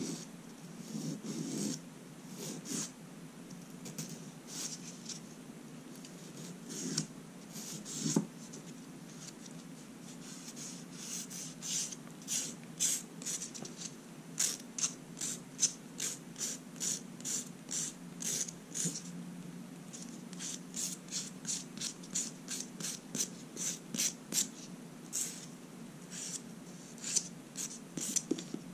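Nail file rasping against a fingernail in short strokes, scattered at first, then settling into a steady rhythm of about two strokes a second. A steady low hum runs underneath.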